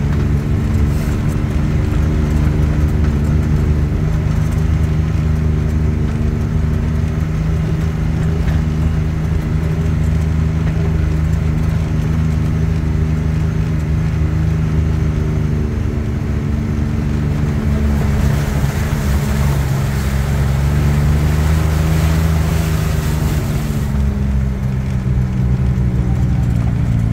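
Can-Am Maverick X3 side-by-side's engine running at a steady low cruise on a rough trail, its pitch sagging and picking up again. A louder rush of noise comes in for several seconds past the middle.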